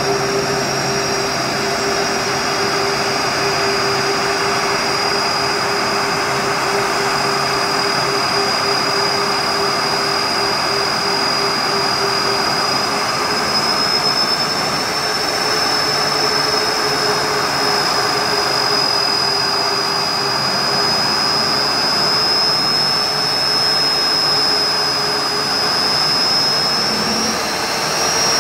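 Boeing 747 freighter's four turbofan engines at low taxi power: a steady rushing jet noise with a high whine that drifts slightly in pitch. A lower hum under it fades out about halfway through.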